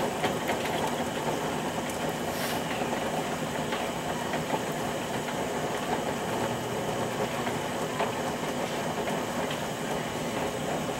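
Potter's wheel running at a steady speed, its motor giving a constant hum and whirr.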